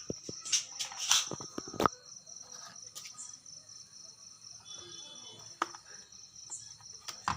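Small clicks and taps from a multimeter and its probes being handled while it is set up for a continuity test: a cluster of them in the first two seconds and a single sharp click later. Under them runs a steady high-pitched background tone.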